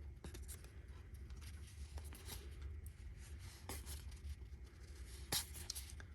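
Trading cards being handled and slid against each other: soft, scratchy rustling with light clicks, and one sharper snap about five seconds in.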